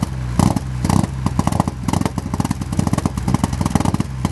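Rally car's engine running with a rough, pulsing idle while it waits on the stage start line, with two short throttle blips in the first second.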